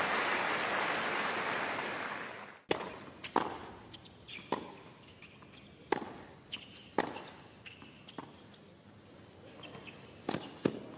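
Crowd applause dying away, then a tennis rally on a hard court: about a dozen sharp knocks of racket strikes and ball bounces, unevenly spaced, with a few short high squeaks between them.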